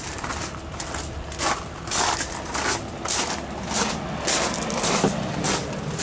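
Footsteps crunching on gravel, about two steps a second.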